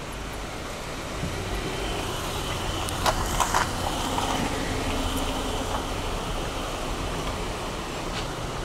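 Steady low rumble and hiss of outdoor ambience, with a short cluster of clicks about three seconds in.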